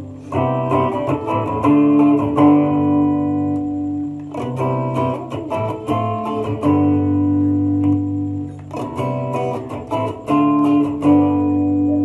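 Electric guitar through its middle hot-rail humbucker, played unaccompanied. The same short picked phrase is played about three times, each ending on a ringing chord. The pickup is heard first as a full humbucker and then split to a single coil.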